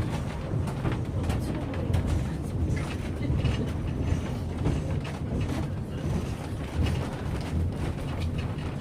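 Diesel-hauled passenger train rolling along the track, heard from aboard: a steady low rumble with frequent clicks and knocks from the wheels and cars.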